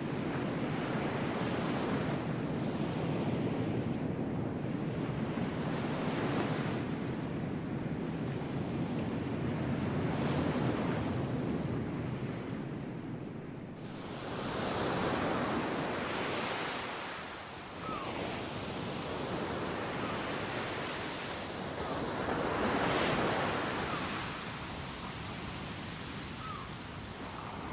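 Ocean surf washing onto a sandy beach, swelling and easing every few seconds. The wash turns brighter and hissier about halfway through.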